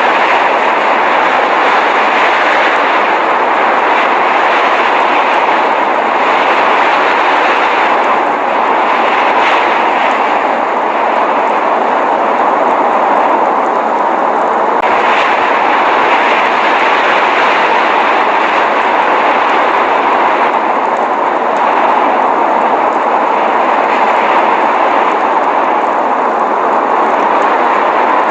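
Blizzard noise: a steady, even rushing hiss with no separate sounds in it.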